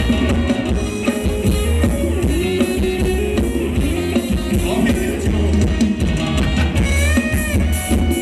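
Live band playing Thai ramwong dance music, with drum kit and a heavy bass beat under the melody.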